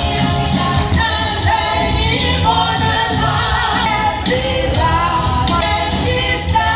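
Live church worship music: a worship team singing a song over amplified band accompaniment, with held, wavering sung notes and a steady beat, heard in a large hall.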